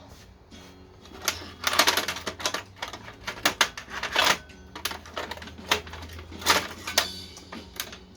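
Small metal hand tools and parts clicking and clattering irregularly as they are picked up and sorted through.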